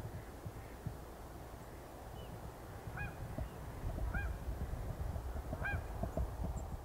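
Geese honking overhead: three short calls about a second and a half apart, from about three seconds in, over a low steady rumble.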